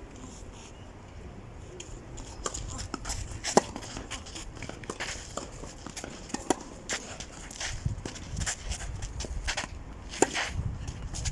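Tennis rally on a clay court: tennis balls struck by rackets about every one and a half seconds, starting about two seconds in. The strongest hits come about every three seconds, the loudest near the end.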